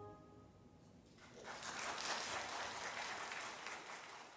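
The last chord of the choir and organ dies away in the church's reverberation, then, about a second in, the congregation breaks into applause, which fades out near the end.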